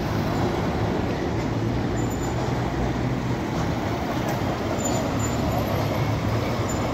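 City bus diesel engine running steadily as the bus turns across the intersection close by, with a constant low hum over the general noise of street traffic.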